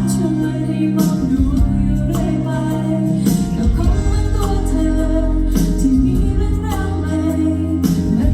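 A song with a singing voice, played over a sound system: a held, sliding vocal melody over sustained bass notes and a beat with a sharp hit about once a second.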